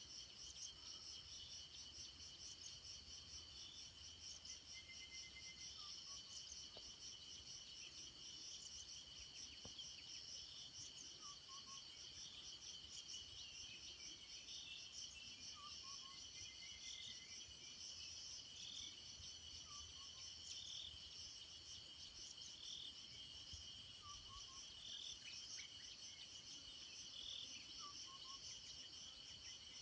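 Tropical forest insects, cicadas and crickets, trilling steadily in several high-pitched layers, with a bird repeating a short two-note falling call every four seconds or so.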